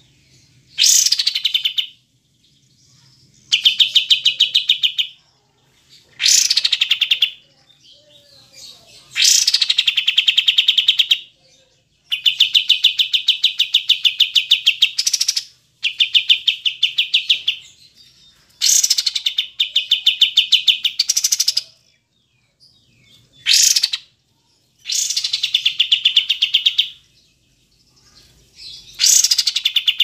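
Kapas tembak bulbul singing: about ten phrases of a second or two each, with short pauses between. Each phrase is a fast run of bright repeated notes, and several open with a high, falling sweep.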